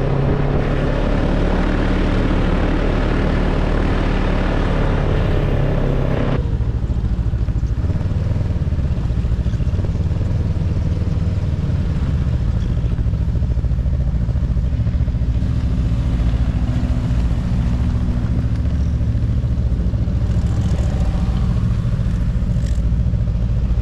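Ski-Doo snowmobile engine running under way, with the rush of track and wind noise. About six seconds in the rushing stops abruptly, and the snowmobile engines go on at a low, steady idle with the sleds stopped on the trail.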